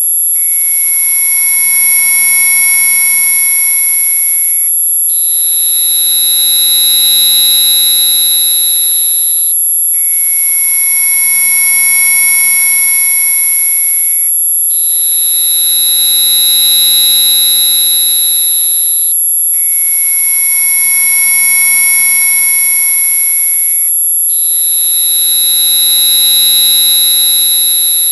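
Synthesized mosquito-repellent tone track: a constant very high-pitched electronic tone, with layered steady tones beneath it. The tones below switch between a higher and a lower set about every five seconds, with a brief break at each change.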